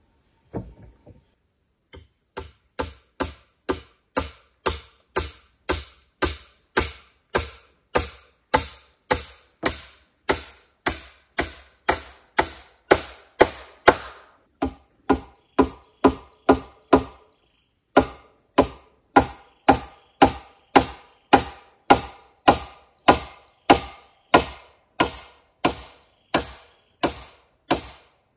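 A hand tool working wood in a steady rhythm of strokes, about two a second, with a short break about two-thirds of the way through.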